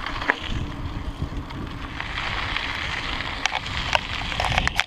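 Wind rushing over the microphone and bicycle tyres rolling on a gravel path while riding an electric bicycle, with scattered clicks and rattles from the gravel and the bike, more of them near the end.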